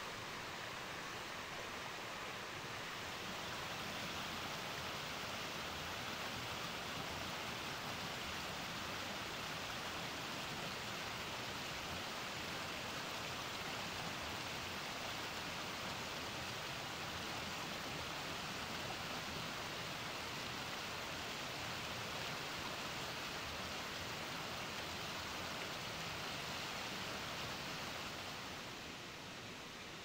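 Steady rushing of a small, wide waterfall: spring water pouring out through gaps in mossy rock and splashing down. It gets a little quieter near the end.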